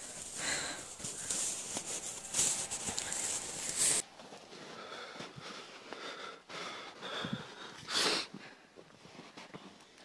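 A person breathing heavily and sniffing, with rustling and crunching noise over the first four seconds that cuts off suddenly. After that come quieter, separate breaths, the loudest about eight seconds in.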